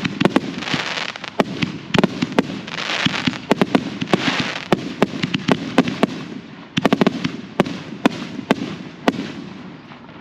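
Professional fireworks display: aerial shells bursting in rapid succession, dozens of sharp bangs and cracks, some in quick clusters, over a rushing hiss that swells and fades.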